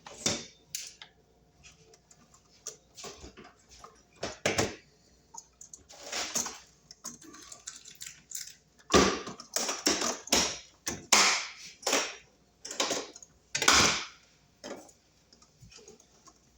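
Hard small objects being handled: irregular clicks, rattles and scrapes, sparse at first and then a busy run of louder clatter in the second half.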